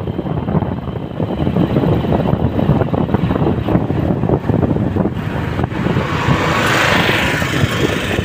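Road and wind noise from a moving vehicle: a steady, loud low rumble with no clear engine note. A brighter hiss builds about six seconds in as it closes on an auto-rickshaw ahead.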